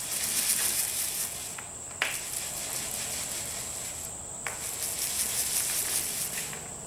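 A paint roller rolling through wet DuraTex roller-grade textured coating on a speaker cabinet, a crackly, sticky hiss in about three strokes with a short click between them.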